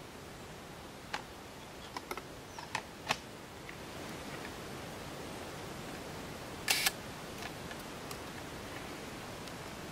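Large-format field camera being handled: a few small mechanical clicks as the shutter is set, then the shutter fires with one short, sharp double click about seven seconds in.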